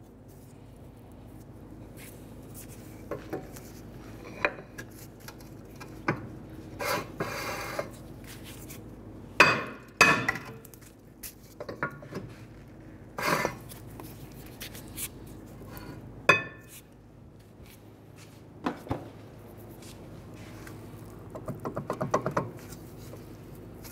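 Mallet blows on the back of a rear brake rotor seized on its hub, landing a few seconds apart with a metallic ring. Scraping and clinking sounds come as the rotor is turned between blows, and a quick run of rattling clicks comes near the end.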